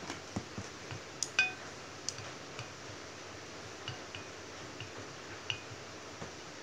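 Wooden chopsticks tapping and scraping against a ceramic plate while mixing wasabi into soy sauce: irregular light clinks, the loudest a ringing clink about a second and a half in.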